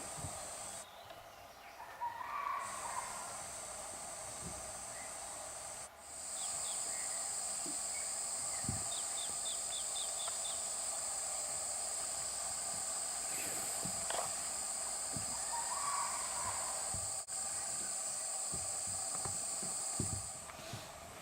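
Insects droning in one steady high-pitched note, louder from about six seconds in, with a bird giving a quick run of short chirps about nine seconds in.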